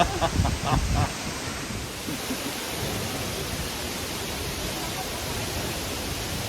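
Steady rushing wash of a tall waterfall dropping almost straight down into its pool. The downdraft of the falling water blows across the microphone.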